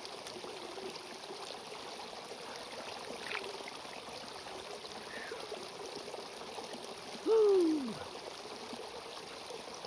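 Stream water running steadily. About seven seconds in, a short, loud cry falls sharply in pitch.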